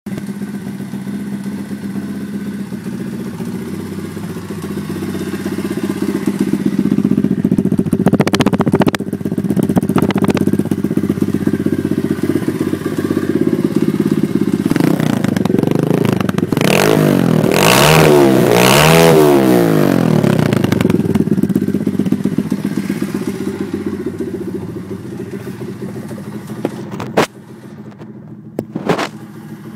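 WPB 125 pit bike's single-cylinder four-stroke engine running, its pitch rising and falling several times around the middle. Near the end it drops quieter, with a couple of sharp knocks.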